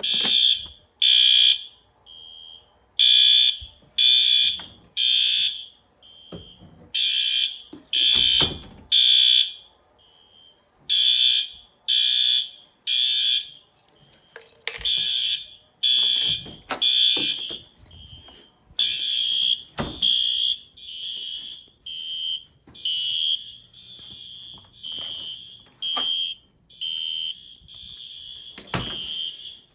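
Fire alarm system in alarm after a manual pull station was pulled: loud, high-pitched horn blasts about once a second, some louder than others. A few dull thuds come in among them.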